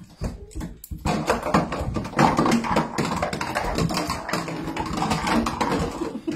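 Boxer puppy scrambling around an empty bathtub: claws scrabbling on the tub and toys knocking against it, a dense run of quick taps and knocks that starts about a second in.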